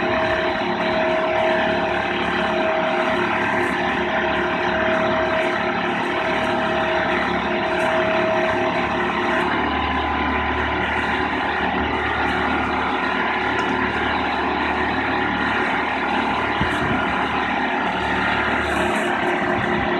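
Mobile boat hoist's engine running steadily under load as its slings lift a sailboat out of the water, with a steady high whine. About halfway through the whine stops and the engine note deepens.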